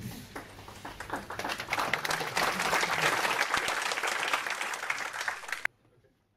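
Audience applauding: the clapping swells over the first couple of seconds, holds steady, then cuts off suddenly near the end.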